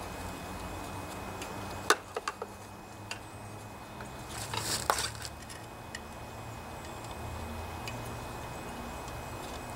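A sharp metallic click about two seconds in, followed by a few lighter ones, then a short scrape just before the halfway mark: a screwdriver working the valve cover gasket off the cylinder head of a Briggs & Stratton single-cylinder OHV engine. A low steady hum runs underneath.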